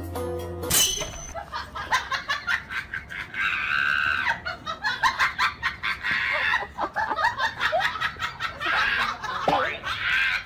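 A wire dog crate rattling and clattering as a husky bites and pulls at its door, with several stretches of high-pitched vocalising of about a second each. Light background music plays briefly at the start, then cuts off.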